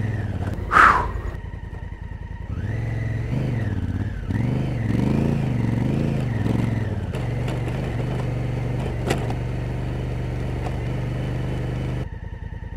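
Honda Africa Twin's parallel-twin engine running at low speed on a rough track, its note rising and falling with the throttle. There is a short sharp knock about a second in and a click later on.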